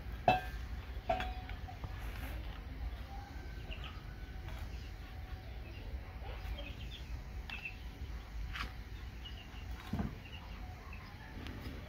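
Meat cleaver chopping fish on a thick round wooden chopping block: a few sharp chops, spaced unevenly, the loudest about a quarter second in and another with a duller thud near the end. Faint bird calls sound in the background.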